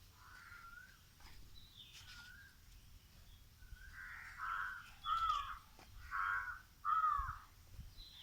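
Crows cawing: a couple of faint caws, then four louder caws in quick succession in the second half.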